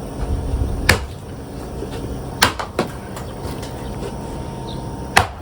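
Axe striking firewood: four sharp knocks, two of them close together near the middle, as the logs are being split.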